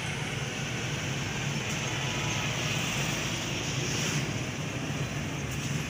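Steady low mechanical rumble with an even hiss above it, unchanging throughout.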